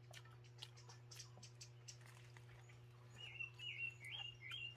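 A small bird singing four short, repeated high whistled phrases, each rising and falling, in the last second and a half. Faint scattered clicks throughout.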